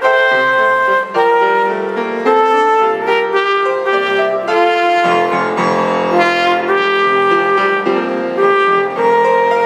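Solo trumpet playing a hymn melody in held notes, accompanied by piano, with fuller piano chords joining about halfway through.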